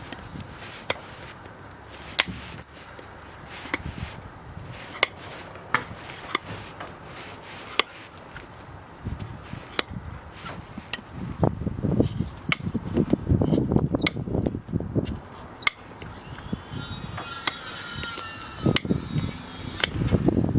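Hoof trimming by a farrier: sharp, separate snips and clicks of cutting tools on the hoof horn every second or so, joined about halfway through by louder, denser low scraping and rustling.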